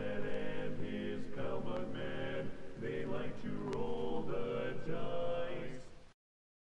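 Background music with layered sustained tones that fades and cuts off to silence about six seconds in.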